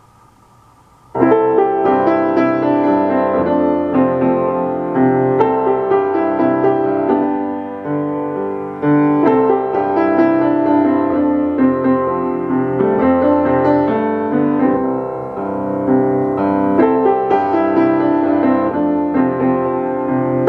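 Piano music: notes and chords played at an even, gentle pace, starting about a second in.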